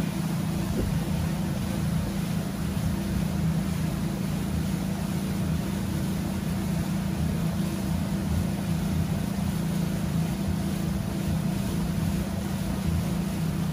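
Boat engine running steadily: a constant low hum under an even rushing noise.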